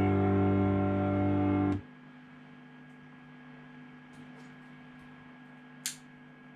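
A held electric guitar chord ringing through an amplifier, cut off abruptly under two seconds in. A steady amplifier mains hum follows, with one sharp click about six seconds in.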